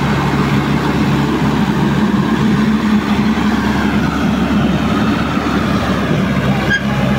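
Swaraj 843 XM tractor's three-cylinder diesel engine running steadily under heavy load as it pulls a loaded sand trolley through shallow water and wet sand, with water splashing from the churning wheels.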